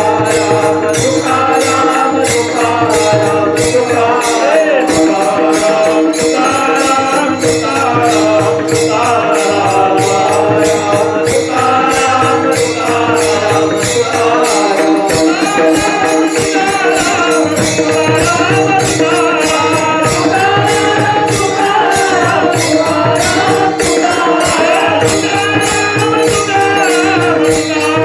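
Devotional kirtan music: voices singing a chanted refrain over a steady held drone, with evenly spaced jingling beats of small hand cymbals.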